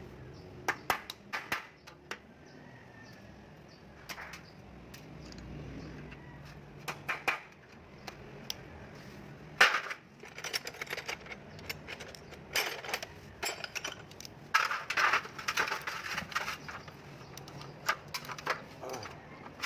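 Irregular metallic clinks and knocks, as of tools and small metal parts being handled and set down, with one louder knock about halfway through.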